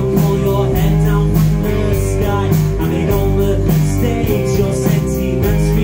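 Live rock band playing a song: electric guitar, bass guitar and a drum kit with steady cymbal strokes, and a singer's voice over them.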